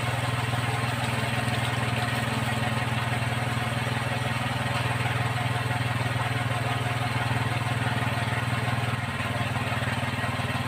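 Honda CD70 motorcycle's single-cylinder four-stroke engine running steadily in third gear, its rear wheel spinning a small centrifugal water pump, with the pump's water jet splashing onto the ground.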